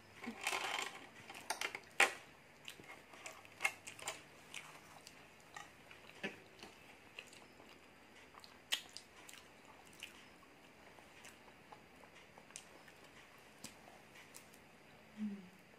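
Close-up eating sounds: quiet chewing of takoyaki, with scattered sharp clicks and scrapes of metal forks against plastic takeaway containers. A brief low hum comes near the end.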